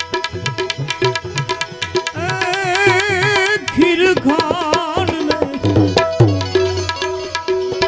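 Instrumental interlude of a devotional bhajan: tabla keeping a fast, steady rhythm over held drone notes. About two seconds in, a melody line enters with a fast, wavering vibrato.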